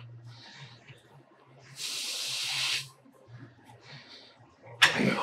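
A weightlifter's forceful hissing exhale, about a second long, during a leg extension rep. A second sharp exhale starts near the end.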